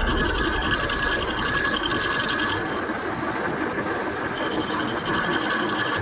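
Lathe running, its gears and mechanism giving a rapid, steady rattle under a constant whine.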